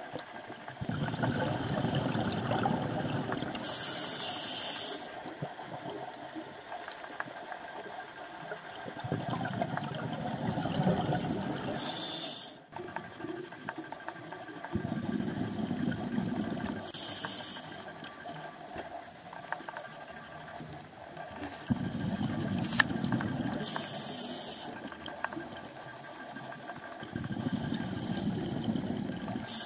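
Scuba diver breathing through a regulator underwater: a burst of bubbling on each exhale, followed by a short hiss of air on each inhale. About five breaths, one every six seconds or so.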